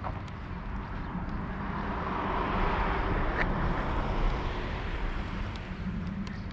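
A passing road vehicle's noise swells and fades over a few seconds, peaking around the middle, over a steady low wind rumble on the microphone of a moving bicycle camera.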